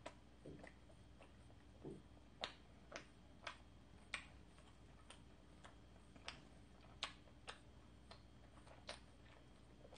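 Near silence with faint, irregular wet mouth clicks and smacks, about one or two a second, from someone eating an ice cream cone close to the microphone.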